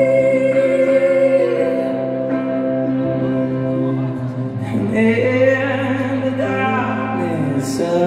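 Live song played on electric guitar and keyboard, with a sung vocal holding long notes; a new held note begins about five seconds in.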